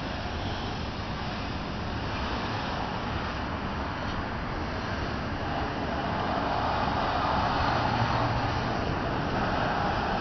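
Union Pacific double-stack container train rolling past, a steady noise of steel wheels on rail that grows louder about six seconds in.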